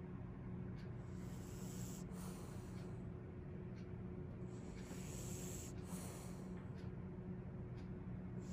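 A sleeping French bulldog breathing noisily through its short, flat nose, its breaths coming as faint hissy puffs every second or two. A steady low hum runs underneath.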